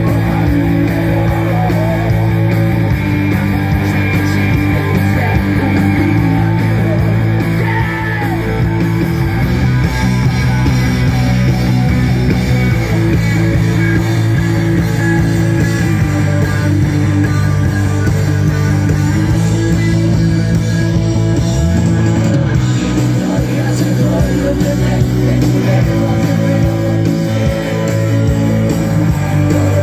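Live rock band playing loud and steady: electric guitars, electric bass and a drum kit.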